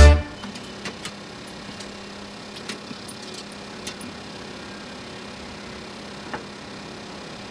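A distant DAF recovery truck's engine idling with a faint steady hum, a few light clicks over it. Swing music cuts off right at the start.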